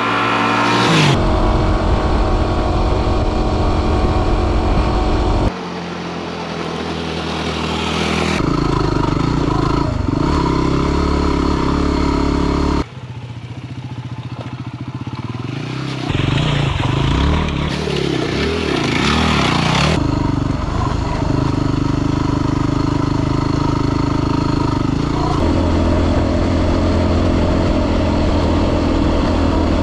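Dual-sport motorcycle engine running while riding, heard in several short stretches that cut abruptly from one to the next. About two-thirds of the way through, the engine note rises and falls with the throttle.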